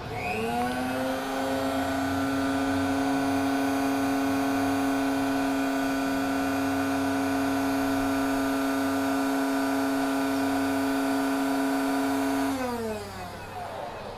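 Electric hot lather machine's motor running as it dispenses warm shaving lather. It spins up with a rising whine just after the start, holds a steady pitch, then winds down with a falling whine near the end.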